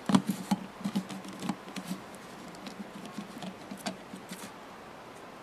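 Fingers handling a small die-cast toy monster truck as it is turned around, giving scattered light taps, clicks and scratchy rubbing, busiest in the first couple of seconds.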